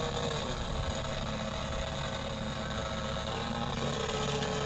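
Senior Telemaster model airplane's motor running steadily at part throttle, with a slight change in pitch near the end.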